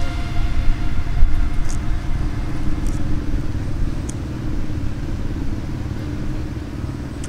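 A steady low outdoor rumble that rises and falls a little, with three faint short high ticks about a second apart in the first four seconds.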